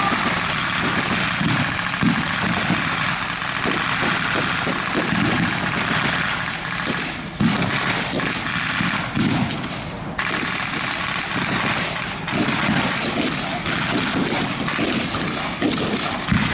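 Blank gunfire in a staged battle: rapid machine-gun fire and rifle shots, continuous and overlapping.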